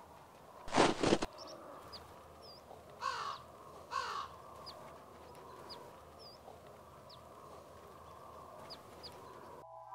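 A boot crunching down in snow about a second in, then two harsh bird caws about a second apart, with faint high chirps of small birds scattered through the quiet forest air.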